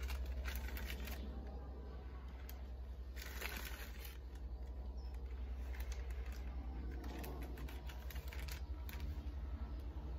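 Small plastic zip-lock tobacco sample bag being handled, opened and held to the nose, crinkling and clicking in short spells several times over a steady low hum.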